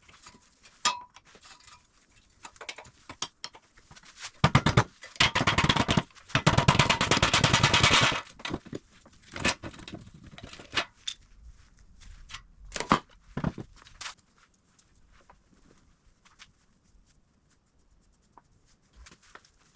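Impact wrench rattling rapidly for about three seconds, loosening the wheel bearing hub bolts on a Toyota Tacoma's factory steering knuckle, just after a shorter burst. Scattered metal clanks and clicks of tools and parts follow.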